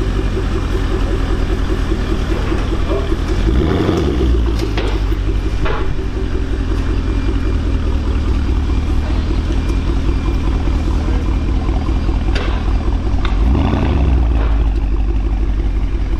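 Porsche Panamera Turbo's twin-turbo V8 idling through a REMUS stainless sport exhaust, revved up briefly twice, a few seconds in and again near the end.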